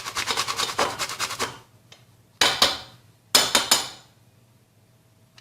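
Whole nutmeg being grated by hand on a grater, quick rasping strokes about six a second that stop after about a second and a half. Then two loud knocks about a second apart.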